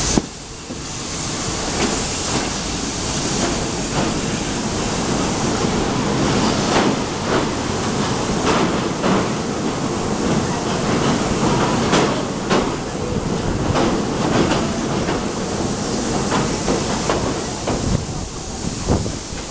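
Passenger train running along the track, heard from an open carriage window: a steady rush of rolling and wind noise, with sharp clacks at irregular intervals as the wheels cross rail joints and points. It crosses a steel truss bridge partway through.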